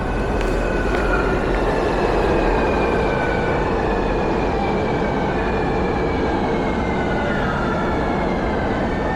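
Sanying line metro train running, a steady rumble with its electric motor whine slowly falling in pitch as the train slows.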